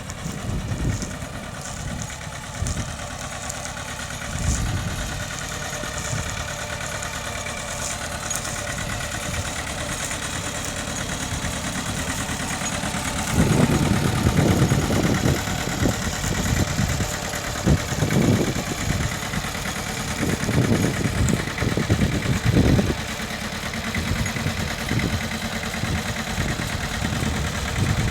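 Engine of a Mitsubishi running steadily while ploughing. From about halfway through, irregular low thumps and rumbles rise over the engine sound for several seconds.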